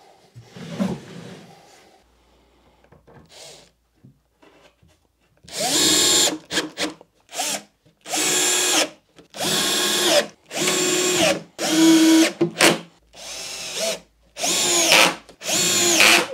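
Cordless drill-driver running in a series of about ten short bursts, starting about five seconds in, driving screws into wood. The motor whine rises in pitch as some bursts start.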